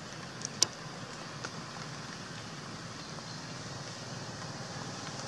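Steady outdoor background noise, a low hum with a hiss over it, broken by three short sharp clicks in the first second and a half, the loudest a little over half a second in.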